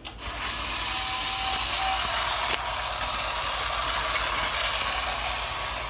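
Battery-powered Fisher-Price GeoTrax toy locomotive running along plastic track: a steady whir from its small electric motor and gears.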